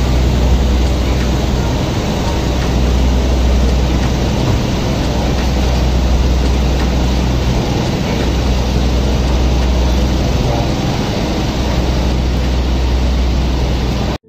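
A car ferry's engine drones steadily with a strong low rumble. Over it runs a loud, even rushing noise of wind and water.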